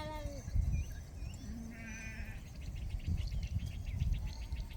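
Sheep bleating: one bleat trails off about half a second in, and a shorter, wavering bleat comes about two seconds in, over a continuous low rumble.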